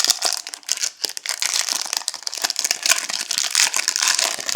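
Plastic wrapping crinkling and tearing as a sealed box of baseball cards is opened by hand, a dense run of fine crackles.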